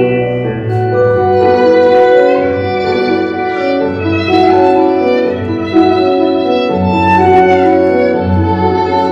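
Instrumental music: a bowed-string melody of long held notes over low sustained accompaniment, with a few sharp accents.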